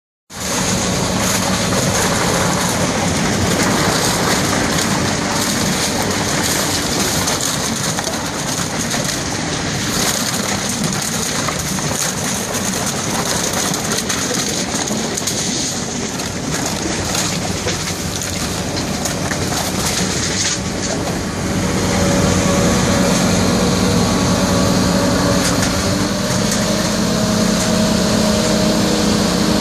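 Truck-mounted vacuum loader running with a steady rushing noise, its wide suction hose drawing plastic bottles in with scattered clattering of plastic. About 22 seconds in the sound grows louder and a steady hum of several tones comes in.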